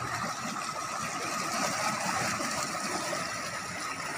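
Swollen river in flood rushing and churning against a concrete riverside wall: a steady rushing noise, with a thin, steady high whine running through it.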